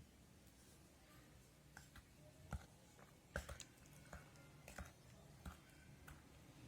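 Faint, irregular clicks and light taps of a metal spoon against a dish, about a dozen spread over several seconds, as spoonfuls of ground ginger are measured out and added.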